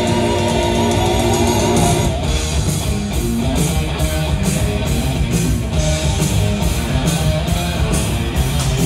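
Music: long held chords for about the first two seconds, then a song with a steady beat.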